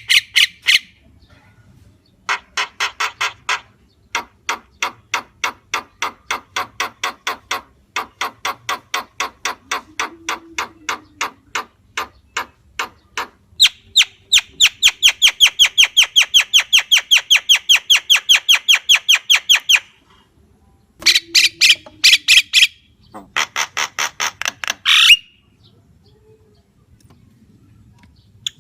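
Javan myna calling in long runs of harsh, rapidly repeated notes, with short pauses between runs. The loudest run, midway, goes at about six notes a second. The calling stops a few seconds before the end.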